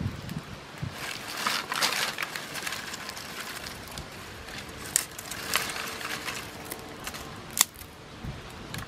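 Small wood fire of dry sticks crackling, with irregular sharp pops, the loudest about five and seven and a half seconds in.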